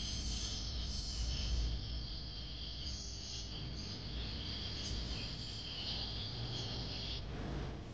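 Potato sticks deep-frying in hot oil, a steady high-pitched sizzle over a low rumble; the sizzle drops away near the end.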